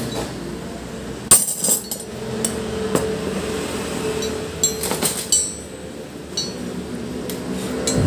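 Steel combination wrenches clinking and knocking against each other and on a wooden tabletop as they are picked from a pile and laid out in a row. The loudest clatter comes about a second in, followed by scattered single clinks.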